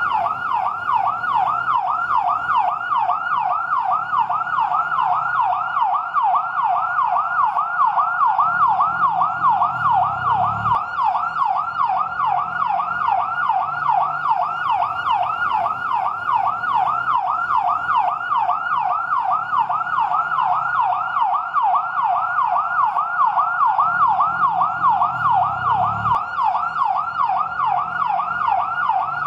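Fire truck siren on its yelp setting: a rapid, continuous up-and-down wail at about three sweeps a second. A low rumble underneath swells twice.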